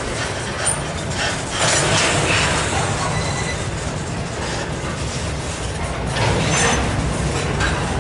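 Empty intermodal well cars of a freight train rolling past: a steady rumble of steel wheels on rail with rattling and clanking from the empty cars, louder about two seconds in and again about six and a half seconds in, with a brief high squeak near the end.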